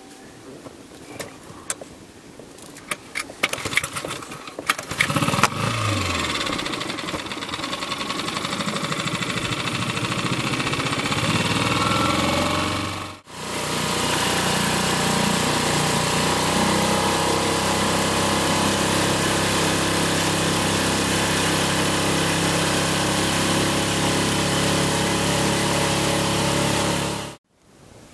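A few clicks and knocks, then a boat's outboard motor starts about five seconds in, its pitch dropping as it settles, and runs loud and steady as the boat moves along with water rushing past. The sound drops out for a moment midway and cuts off abruptly near the end.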